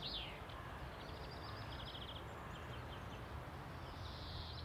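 Outdoor ambience: small birds chirping in short, rapid trills over a low steady rumble.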